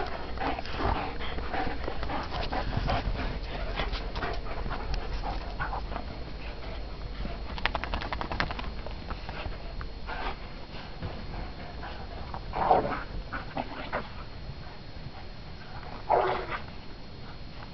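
Greyhounds playing in snow, their movement making many small clicks and scuffles, with two louder short sounds about twelve and sixteen seconds in.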